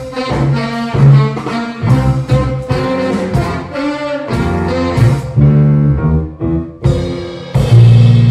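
Jazz big band playing: saxophone section and brass over piano and drum kit, in short punchy phrases broken by brief gaps. Near the end the full band hits a loud chord and holds it, the closing chord of the piece.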